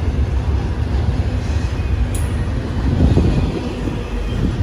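Intermodal freight train's cars, loaded with semi-trailers, rolling past close by: a steady, uneven rumble of steel wheels on rail.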